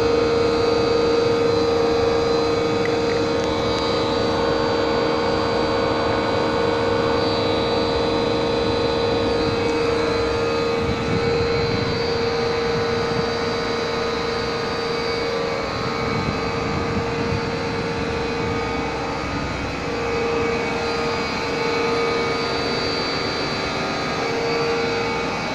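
Electric motor-driven pumps of a biogas plant running steadily: a continuous machine drone with a constant mid-pitched whine over it.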